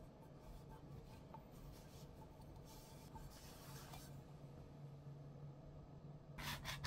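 Faint cotton dish towel rubbing over a stainless steel container as it is wiped dry, in several soft strokes over a steady low hum. A few light clicks near the end.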